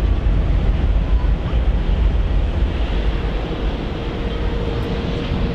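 Jet airliner engines rumbling as an aircraft passes, with a faint steady whine joining about halfway through and wind noise on the microphone.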